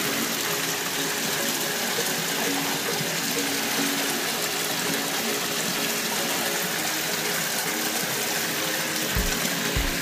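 Water spilling steadily over the tiers of a stone indoor waterfall, a continuous splashing hiss, with background music playing over it.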